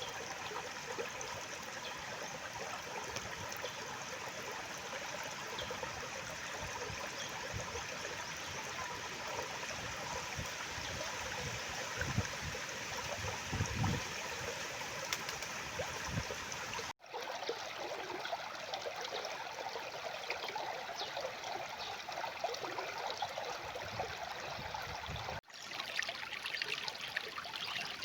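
A stream running with a steady rush and trickle of water. The sound breaks off abruptly for an instant twice, about two-thirds of the way through and again near the end, where separate recordings are spliced together.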